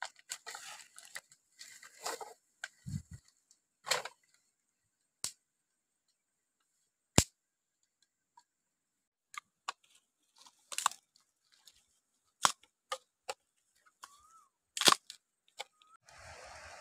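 Scattered sharp clicks and knocks of dry bamboo sticks being handled and set down on bare ground, with light rustling. A steady hiss starts just before the end.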